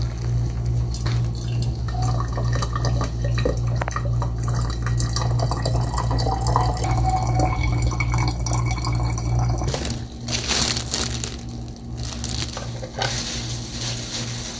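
Water running and splashing over a steady low hum; about ten seconds in the hum stops and two louder gushes of running water follow, the second lasting to the end.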